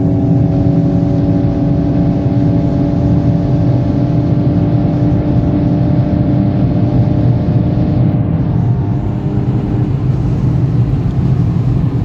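Cabin sound of a VW Golf 8 GTI Clubsport's 300 hp turbocharged 2.0-litre four-cylinder at steady speed on the motorway, with a constant engine drone over heavy road and tyre rumble. The engine note fades near the end while the rumble continues.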